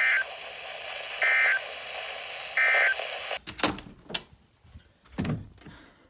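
Emergency Alert System end-of-message data bursts on a weather radio broadcast: three short, high-pitched digital bursts about a second apart over steady radio hiss, signalling the end of the warning message. The hiss then cuts off suddenly and a few sharp clicks and knocks follow.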